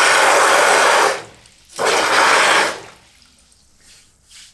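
Water gushing from a braided flexible hose into a bucket in two bursts, each a second or so long, as the newly fitted shut-off valve is opened and shut on the restored water supply.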